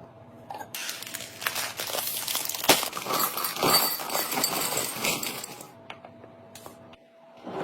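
Kitchen items and packaging being handled: a few seconds of crinkling and rustling full of small clicks and light clinks, with one sharper knock partway through, then quieter handling near the end.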